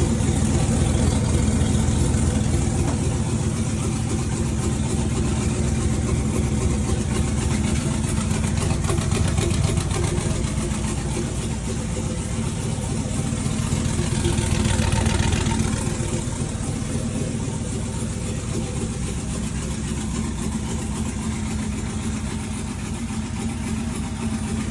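Turbocharged race engine idling steadily in the shop, a slight swell in level around fifteen seconds in, on one of its first runs on its turbos.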